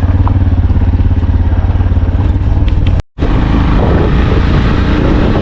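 A vehicle engine running steadily under way, with a fast, even pulsing rumble and road and wind noise. The sound cuts out for a split second about three seconds in.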